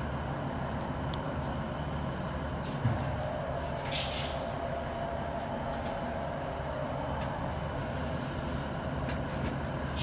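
Class 156 diesel multiple unit standing with its underfloor diesel engine idling, a steady low hum heard from inside the carriage. Short hisses of compressed air come about four seconds in and again at the end, with a single knock just before the first hiss.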